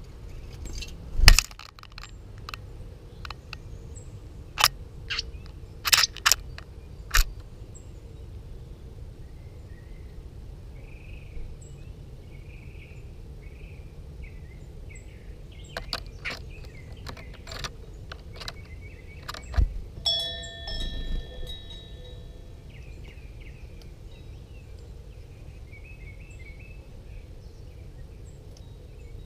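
Brass bell rung by a house wren: a scatter of sharp clicks and knocks, then about twenty seconds in one clear ring of several tones that fades over about two seconds. Faint bird chirps come and go over steady low background noise.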